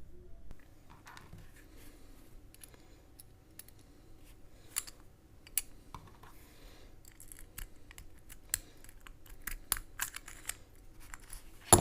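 Small metallic clicks and scrapes of lock-picking tools working in a Brinks R60 discus padlock, irregular and light, with a sharper, louder click near the end.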